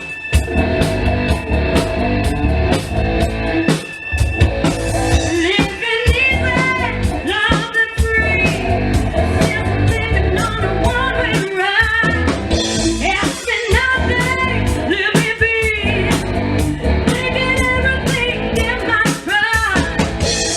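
A live band playing a rock-style song with drums and guitar, with a singer's voice coming in about five seconds in.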